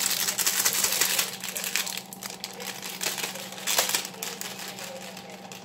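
Crinkling and rustling of the wrapper around a rolled pie crust as it is handled and unrolled, dense in the first two seconds and then fading to a few soft ticks. A steady low hum runs underneath.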